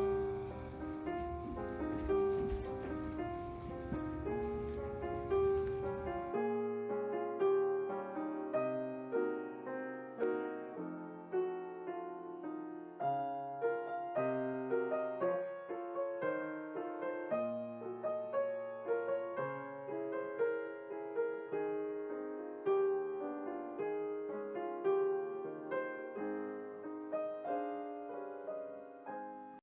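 Solo piano playing a gentle, slow piece of single notes and chords. For the first six seconds a low rumble and hiss lie under the music, then stop abruptly, leaving the piano clean.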